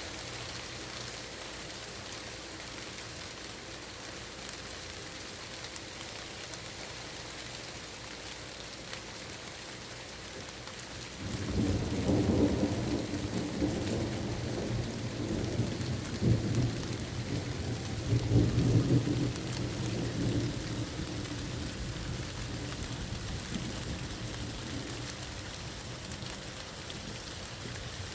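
Steady rain falling. About eleven seconds in, a long roll of thunder comes in low and loud, swelling several times before it slowly fades under the rain.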